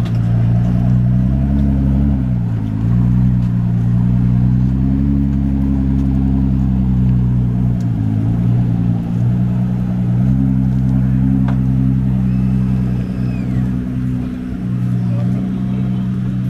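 Ford GT's twin-turbo 3.5-litre V6 running at low revs as the car is driven slowly off a trailer ramp; the engine note sags briefly twice, a couple of seconds in and again about halfway, then holds steady.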